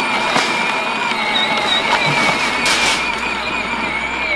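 Electric ride-on toy tractor driving over dry, bumpy ground, its motor and gearbox giving a steady, slightly wavering whine over the crackle and rattle of hard plastic wheels. A few short knocks come as the towed trailer and wire cage jolt.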